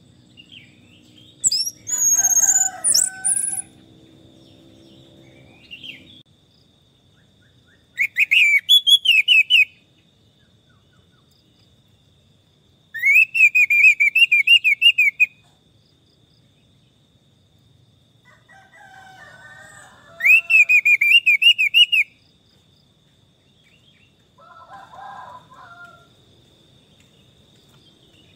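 Orange-headed thrush calling: about three bursts of quick, rising and falling notes, each about two seconds long and a few seconds apart, with scratchier, lower calls between them. A steady high insect-like tone runs underneath.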